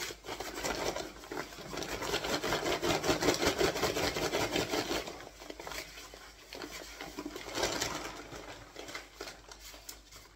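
Paper sack of powdered tile adhesive rustling and crackling as it is handled and opened, loudest for a few seconds in the middle, with a shorter burst near the end.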